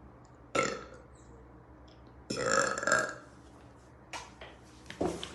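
A woman burping: a short burp about half a second in, then a longer, louder burp a couple of seconds later, followed by a few faint clicks.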